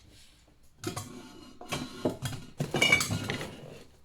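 Metal cookware pieces clinking and clattering as they are handled, loudest about three seconds in with a brief metallic ring.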